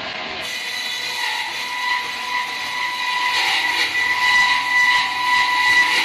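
Horizontal band sawmill running, a steady mechanical whine from the saw and its electric motors that grows louder and rougher from about three seconds in.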